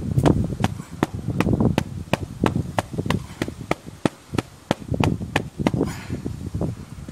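A VW Polo 1.9 TDI's panel air filter being knocked edge-down against brick paving, about three sharp knocks a second, to shake out the dust it caught while the car was driven in a dust cloud on a gravel road.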